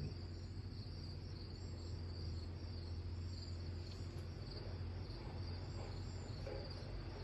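Low, steady rumble of an approaching 18-wheeler log truck's engine from down the road, under the continuous pulsing chirp of crickets.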